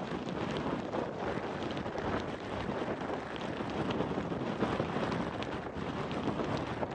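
Blizzard wind blowing steadily, with scattered faint ticks through it.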